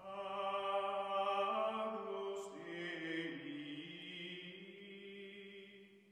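Slow chanted vocal music: long held notes that step down in pitch about halfway through, then fade out near the end.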